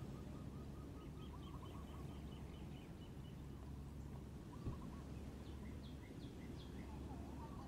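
Birds calling: a run of quick repeated chirping notes, then a few short separate calls later, over a steady low background rumble. A soft knock a little past the middle.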